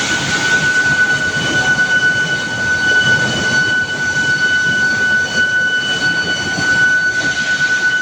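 Automatic-feeding induction billet heating furnace running: a steady high whine with fainter overtones over a continuous mechanical rumble from the feeding line.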